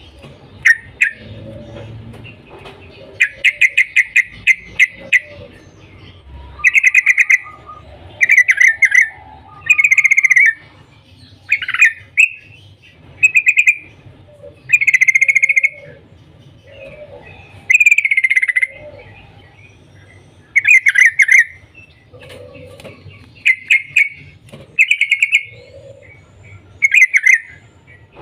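Yellow-vented bulbul calling loudly: repeated short bursts of rapid chattering "cuk cuk" notes, one burst every second or two.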